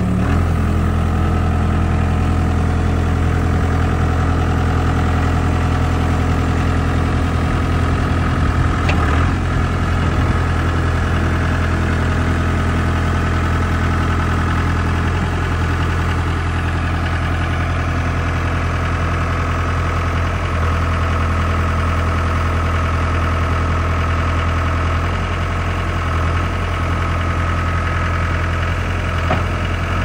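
Case 60XT skid-steer loader's diesel engine running at a steady throttle while the machine is driven, with a short knock about nine seconds in.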